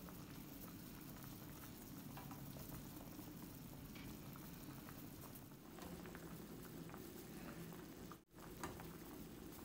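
Pot of chicken-feet soup at a steady rolling boil, a soft continuous bubbling with small pops, with a very brief dropout about eight seconds in.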